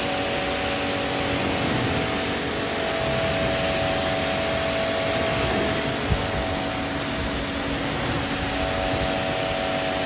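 Pressure-washer pump running steadily with a hum while its water jet hisses onto a car's body and wheels. A small knock about six seconds in.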